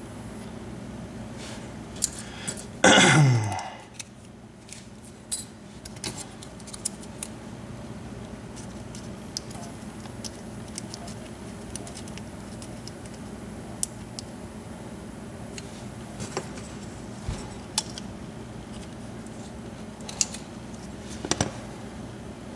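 Small metal lock parts and tools clicking and clinking as a Pacific Lock 100A padlock cylinder is taken apart. About three seconds in, one brief loud sound drops steeply in pitch. After it come scattered light clicks over a steady low hum.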